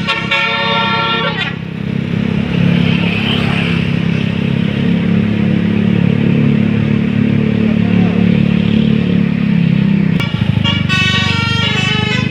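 Bus basuri horn, a multi-trumpet telolet air horn, playing a stepping multi-note tune for about a second and a half, then a low steady rumble for several seconds, then the horn tune starts again near the end.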